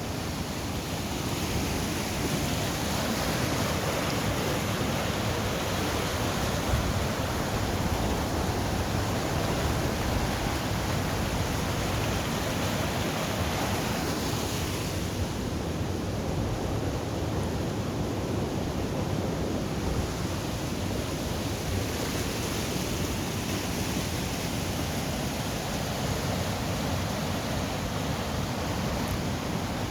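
Waterfall and salmon stair (fish ladder), water rushing steadily.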